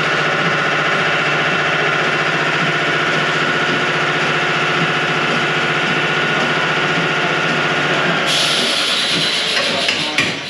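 Power tool running steadily against the quarter panel's sheet steel, with a constant whine and an air hiss, as the panel is cut away. A sharper high hiss joins about eight seconds in, and near the end a few metal knocks begin.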